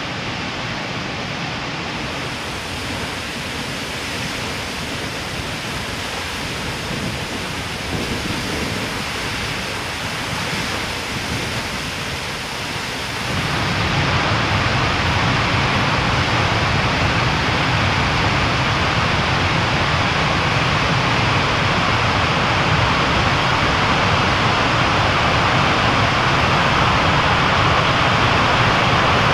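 A large waterfall: a steady, loud rush of falling and crashing water, with no tone or rhythm in it. It jumps up in loudness about 13 seconds in and then holds steady.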